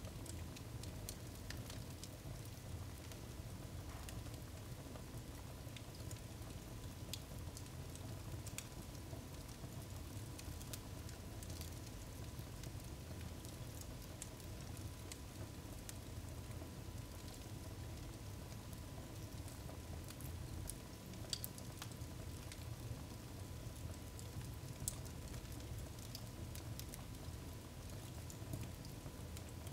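Wood fire burning in a fireplace: scattered small crackles and pops of the firewood over a low, steady rush of the flames.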